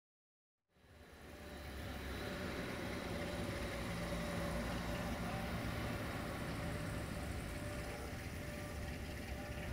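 Diesel engine of a CFR class 060-DA (LDE2100) diesel-electric locomotive, a Sulzer 12-cylinder unit, running with a steady low rumble and a steady hum. It fades in about a second in, after a brief silence.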